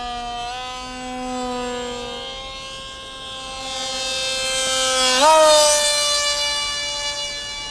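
RC foamboard delta plane's electric motor whining in a steady tone as the plane makes a low pass. About five seconds in the pitch jumps up and the whine is at its loudest, then the pitch sinks slowly.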